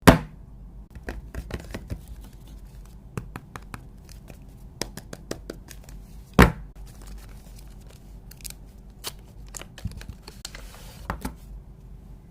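Wireless-earbud packaging being handled and opened by hand: a run of small clicks, tearing and crinkling, with two louder knocks, one right at the start and one about six seconds in.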